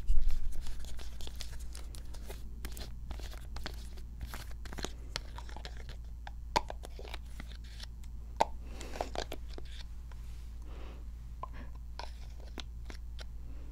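Close, crisp crackling and crunching from a face-cleanser bottle being handled and opened, with many sharp clicks and a thump right at the start.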